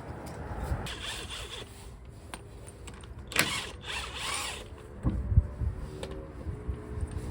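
Hand tools working on a car's rear brake caliper: two bursts of rasping scraping, then a run of metallic clicks and knocks.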